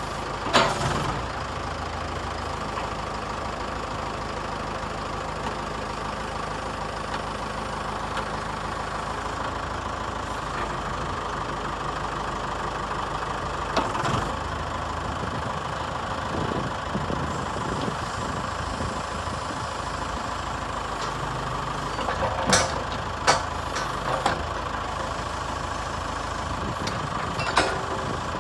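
Case 590 Turbo backhoe loader's turbo diesel engine idling steadily, with a high whine held over the drone. A few sharp metallic knocks cut in: one right at the start, one mid-way, a cluster of three a little later, and one near the end.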